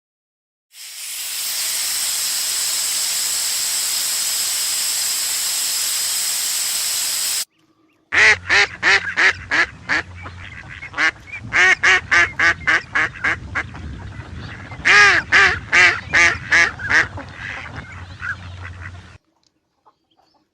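A steady hiss for about the first seven seconds, then a duck quacking: three runs of quick, repeated quacks spread over about eleven seconds.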